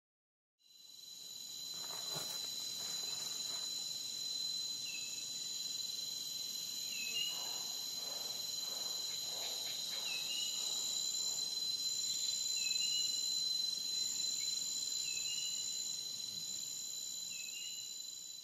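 Steady, high-pitched insect chorus that fades in after a brief silence, with a short rising chirp repeating about every two seconds.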